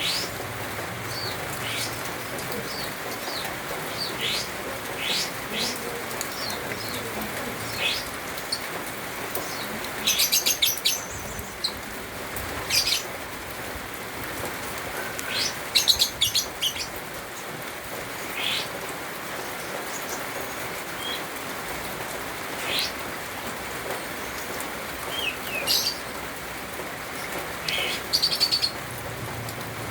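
A cucak keling songbird calling: short, scattered high chirps and whistles, broken three times by loud, rapid chattering bursts. A steady hiss runs underneath.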